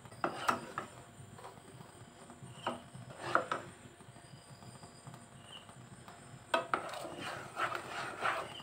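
Wooden spoon knocking and scraping against a nonstick saucepan while stirring thickened chocolate sauce: scattered clicks, with a busier run of knocks near the end.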